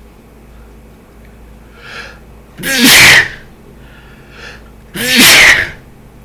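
A man sneezing twice, about two and a half seconds apart, each loud sneeze preceded by a short catching in-breath. They are allergic sneezes, part of a hay fever sneezing fit.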